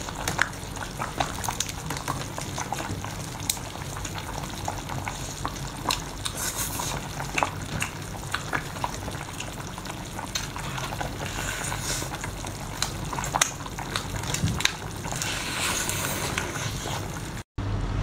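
Wet crackling of a large shrimp's shell being pulled apart by hand, with many small clicks, along with wet chewing. The sound drops out suddenly for a moment near the end.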